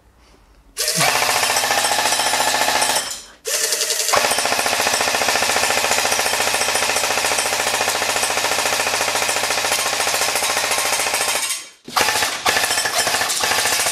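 AGM MG 42 airsoft electric gun firing full-auto: the rapid, even mechanical rattle of its gearbox cycling. It comes in three bursts: one of about two seconds starting a second in, a long one of about seven seconds, and a third starting just before the end.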